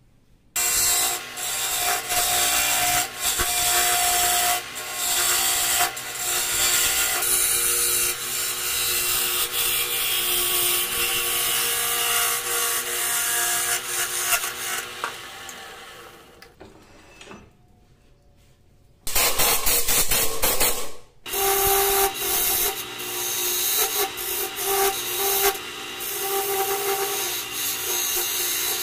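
A hand-held turning tool cutting and scraping the inside of a segmented rosewood, rengas and maple vase spinning on a wood lathe: a loud, steady scraping that starts about half a second in. It breaks off for about two seconds a little past the middle, then resumes.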